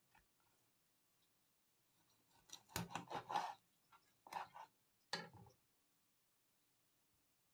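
Kitchen knife cutting through a raw salmon steak on a wooden cutting board: a quick run of cutting strokes, then two shorter cuts about a second apart.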